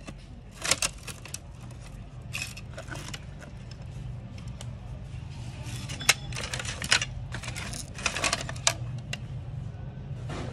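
Metal phone housings and batteries clattering and clinking as a hand sorts through a pile of them, in irregular knocks with the sharpest ones between about six and nine seconds in, over a steady low hum.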